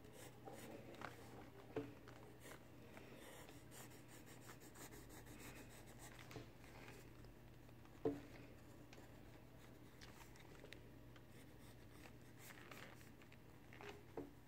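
Pencil scratching faintly on paper as lines are drawn, with a few soft knocks, the loudest about eight seconds in, over a faint steady hum.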